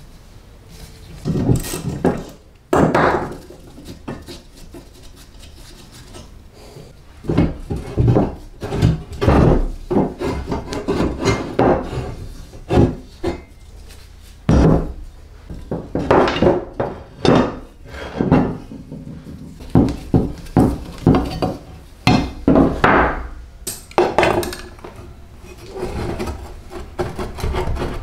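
Rusty steel parts of an old reel lawn mower being handled and taken apart on a wooden workbench: irregular metal clanks and knocks against the wood, with some scraping. Sparse at first, then frequent from about seven seconds in.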